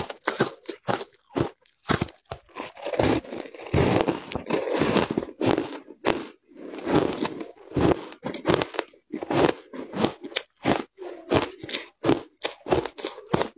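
Crunching and chewing of mouthfuls of packed shaved ice coated in matcha powder: a quick, uneven run of crisp crunches that never lets up.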